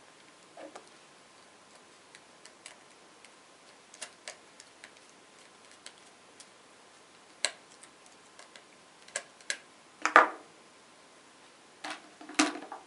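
Small metal bolts and nuts clicking and a robot-car chassis plate and yellow gear motor knocking together as they are fitted by hand: scattered light ticks, with louder knocks about ten seconds in and near the end.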